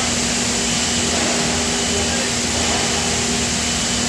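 Steady drone of die-casting plant machinery with a constant low hum, unchanging throughout.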